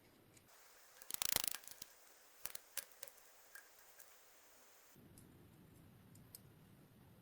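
Small hard parts being handled at a workbench: a short clattering rattle about a second in, then a few separate clicks.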